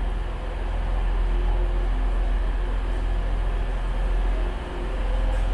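Class 185 diesel multiple unit running slowly into a station platform: a steady low rumble from its diesel engines and wheels, with a faint hum over it.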